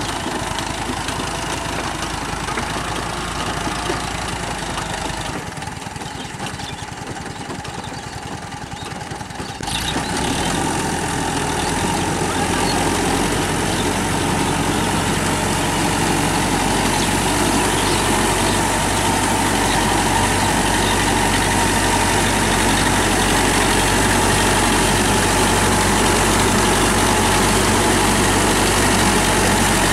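TAFE 5900 DI tractor engine running steadily under load while pulling a rotary tiller through flooded paddy mud. The sound dips for a few seconds, then steps up suddenly about ten seconds in and stays louder.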